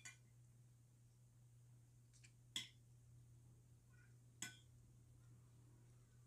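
A metal spoon clinking against a ceramic plate while scooping up steak, two clear clinks about two seconds apart with a few fainter taps, over a steady low hum.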